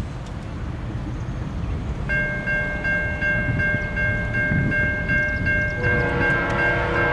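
Air horn of an approaching diesel locomotive, an ex-Conrail GE C40-8, sounding one long steady multi-note chord that starts about two seconds in and grows fuller, with lower notes joining near the end, over a low rumble.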